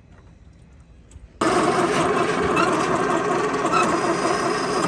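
The 1927 American LaFrance pumper's engine, choked, runs steadily. It comes in suddenly about a second and a half in, after a near-quiet stretch.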